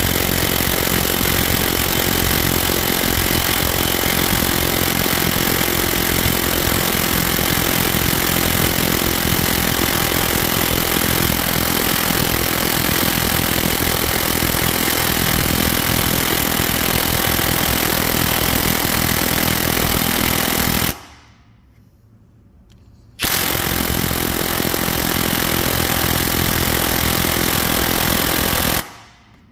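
High-torque impact wrench, rated for 1070 foot-pounds, hammering continuously through a 24 mm swivel impact socket on a bolt that neither turns off nor breaks. It runs for about twenty seconds, stops for about two, then hammers again for about six seconds.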